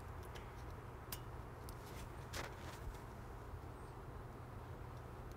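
A few faint, short clicks and taps of a small hand tool against a brake caliper, over a low steady hum.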